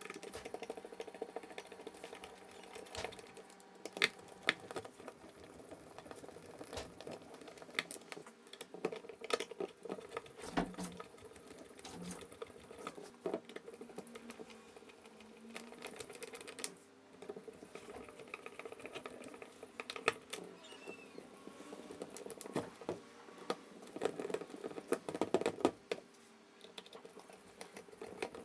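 Small screws being set and driven by hand with a screwdriver into a cordless drill's plastic housing: an uneven run of small clicks, taps and scrapes of metal on plastic.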